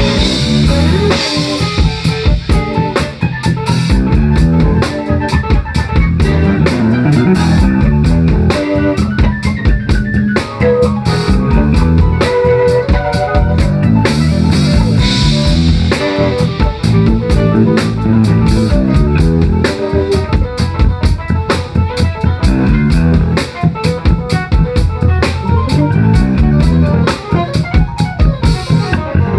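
A live band playing loudly, with drum kit, electric guitar and a low bass line.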